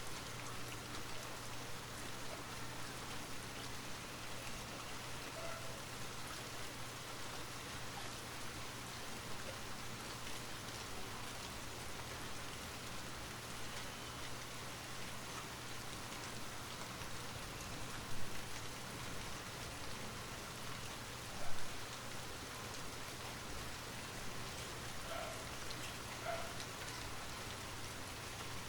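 Light rain falling steadily, an even hiss with scattered small drop ticks and a faint steady low hum underneath. Two brief louder drop sounds come about two-thirds of the way through, three seconds apart.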